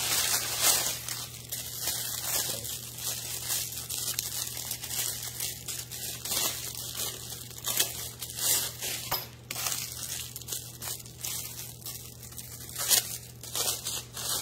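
Clear plastic packaging bags crinkling and rustling as they are handled and pulled off folded fabric bags, in irregular crackles with a few sharper loud crinkles.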